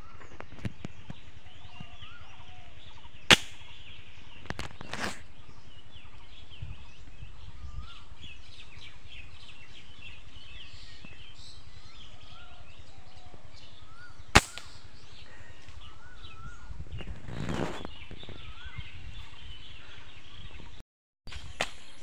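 Small birds chirping and calling in the trees over a steady outdoor background. Two sharp, loud clicks come through, about three seconds in and again about fourteen seconds in. The sound cuts out briefly near the end.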